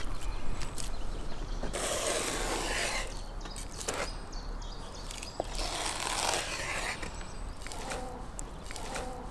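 Kitchen knife slicing through raw wild boar meat on a wooden cutting board: a series of rasping cutting strokes about a second long each, with a few sharp clicks of the blade against the board.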